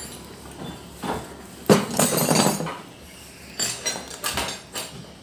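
Steel wood auger drill bits clattering and clinking against each other as a bundle of them is set down and shifted on a wooden floor. The clatter comes in a few rounds, the loudest a little under two seconds in.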